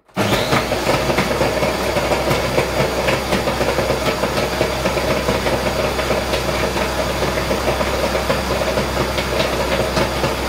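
Countertop jug blender switched on and running steadily at full power on a thick mix of ice and ice cream. The blades may be just spinning without catching the remaining ice.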